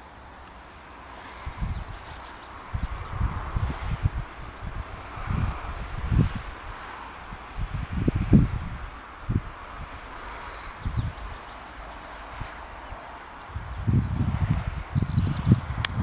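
Crickets chirping: a continuous high, fast-pulsing trill. Irregular low gusts of wind rumble on the microphone come and go, strongest about eight seconds in and near the end.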